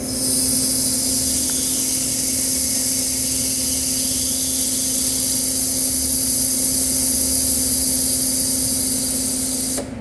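Loud, steady hiss of air or gas venting at an air-conditioning recovery and recharge machine, cutting off suddenly just before the end, over the machine's steady hum.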